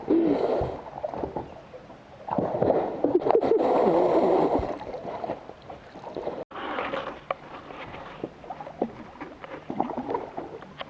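Water splashing and sloshing around a small boat, loudest in the first half, followed by quieter scattered knocks.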